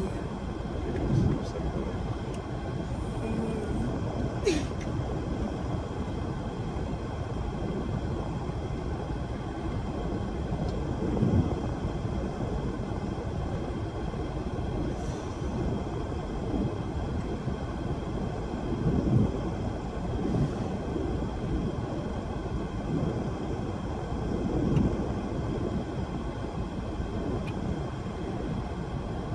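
Steady low rumbling noise, with a few brief bursts of voices about a second in, near 11 s, near 19 s and near 25 s.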